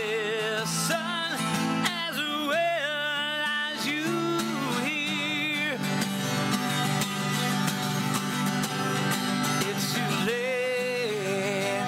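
Twelve-string acoustic guitar strummed in a steady rhythm, with a wordless sung melody over it, held notes with vibrato, for about the first six seconds and again near the end.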